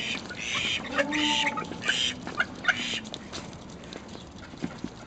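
Several short, harsh bird calls in quick succession during the first three seconds, over the light slapping of Cape penguins' feet on wet concrete; after that only the patter of feet remains.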